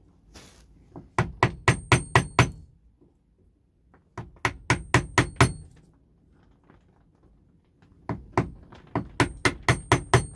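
Wood chisel driven with a hammer, chopping waste out of a routed bowtie inlay pocket towards the marked line. Three quick runs of sharp taps, about five a second, with a faint ringing.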